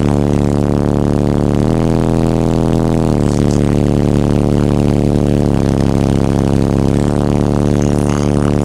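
Brutal Sound Big Brute 18-inch subwoofers playing bass-heavy music loud: long held bass notes that step to a new pitch every one to two seconds.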